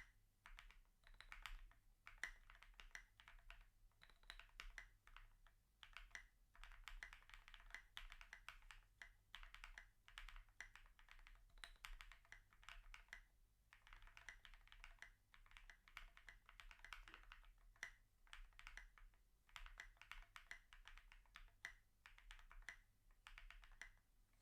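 Meow 65 gasket-mounted mechanical keyboard being typed on continuously. It has lubed and filmed Durock POM Piano linear switches on an FR4 plate with Poron plate foam. Quiet, rapid keystroke clacks come in quick runs with brief pauses.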